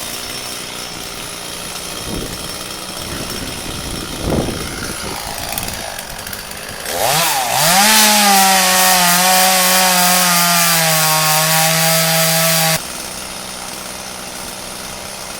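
Two-stroke chainsaw idling, then revving up about seven seconds in and running at full throttle for about five seconds, its pitch sagging under load as it cuts through the dead pine trunk, then dropping off suddenly.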